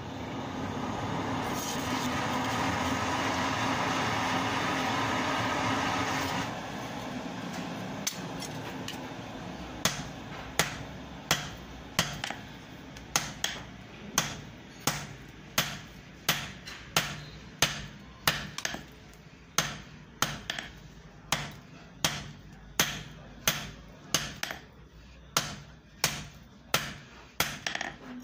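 A charcoal forge's air blower runs steadily for about six seconds, then cuts off. After a short pause, a hand hammer strikes red-hot iron on an anvil in a steady rhythm of about three blows every two seconds.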